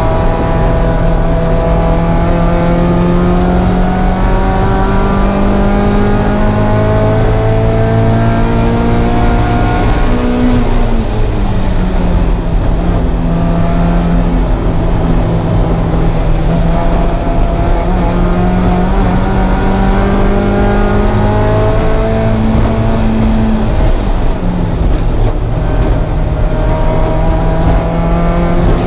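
1994 Mazda Miata's 1.8-litre four-cylinder engine running hard on track. Its pitch climbs slowly under throttle, falls sharply about ten seconds in, climbs again and falls again about five seconds from the end, over steady road and wind noise.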